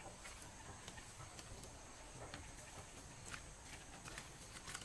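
Footsteps shuffling on dry wood chips and gravel, giving faint, irregular light clicks and crunches.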